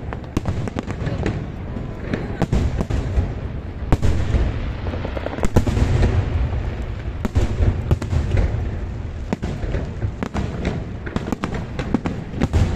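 Aerial fireworks display: shells bursting overhead with many sharp bangs and crackles at uneven intervals, over a continuous low rumble.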